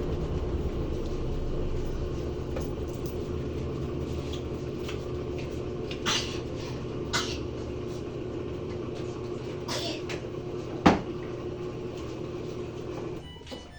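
Mabe top-load washing machine at the end of its spin cycle: the drum and motor run with a steady hum that fades slowly and stops about 13 seconds in, with a few light clicks and one sharp knock about 11 seconds in. It runs without banging, the sign of a properly working new transmission.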